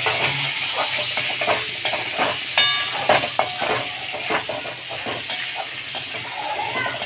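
Potato chunks sizzling in hot oil in a metal wok, stirred with a perforated metal spatula that scrapes and knocks against the pan. About two and a half seconds in, the spatula gives off a short metallic ring.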